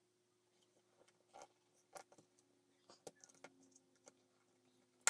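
Faint, scattered clicks and ticks of small plastic and metal pistol parts being handled and pressed into the air pistol's frame, with a faint steady hum underneath, sped up in fast-forward. A sharper click comes at the very end.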